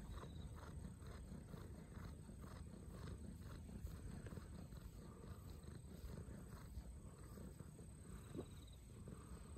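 Faint, steady purring of a tabby-and-white kitten as its head is stroked, with soft repeated rubbing of a hand over its fur.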